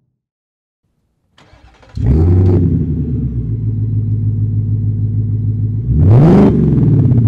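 2024 Ford Mustang GT's 5.0 L V8 with a MagnaFlow xMOD cat-back exhaust (muffler module, Track mode), cold-started and heard from outside the car. About a second and a half in the starter cranks briefly; the engine catches with a flare of revs and settles to a steady idle. Near the end one quick rev rises and falls back to idle.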